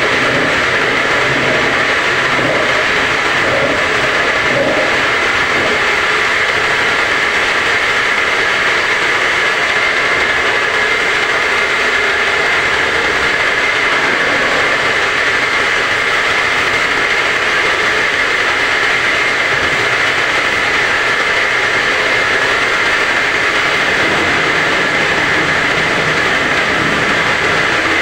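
Semi-automatic round water-gallon washing machine running steadily: a loud, unbroken mechanical noise.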